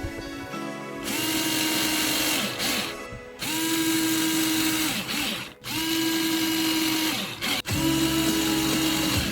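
Small electric motor running in four bursts, each spinning up to a steady whine and winding down. Background music plays underneath.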